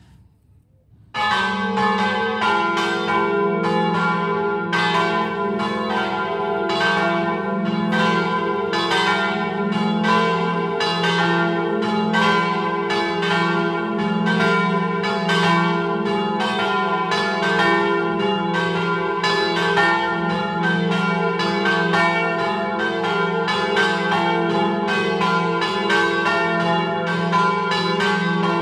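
Peal of three church bells, tuned in a slightly flat F3 and swung in the Friulian 'a slancio' style, ringing continuously with overlapping strikes. The small and large bells were cast by G.B. De Poli in 1951 and 1930, the middle bell by Alfonso Clocchiatti in 1963. The ringing starts suddenly about a second in.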